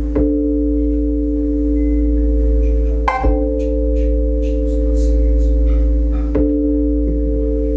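Roland Juno-DS synthesizer playing a sustained chord over a deep bass drone, the chord restruck about every three seconds.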